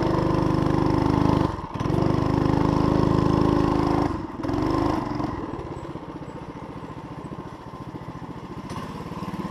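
6.5 hp Harbor Freight clone single-cylinder four-stroke engine on a Heald Super Bronc trike, running loud under throttle. It dips briefly twice as the throttle is let off, drops to a quieter idle about five seconds in, and picks up slightly near the end.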